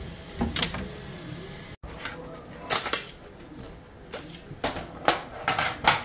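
Irregular sharp clicks and clacks of 3D-printed plastic parts and the flexible steel build plate being handled, as freshly printed parts are popped off the textured PEI plate.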